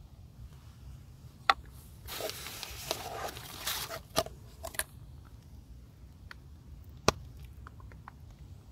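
Close handling noises of camp breakfast gear: a sharp click about one and a half seconds in, then about three seconds of crinkly rustling and scraping, and another sharp click about seven seconds in.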